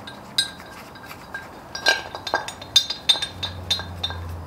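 Scattered sharp metal clinks of bolts and hand tools knocking on a Nissan VR38DETT engine as a motor mount is fitted, coming more often in the second half.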